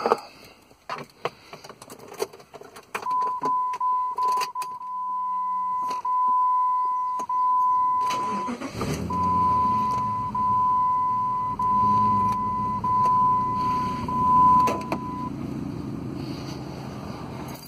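Clicks of the key and controls, then the 2000 Jeep Grand Cherokee's 4.7-litre V8 cranks and starts about nine seconds in and settles into a steady idle. A steady high warning tone from the dash sounds for several seconds before the start, pauses briefly as the engine catches, and stops a couple of seconds before the end.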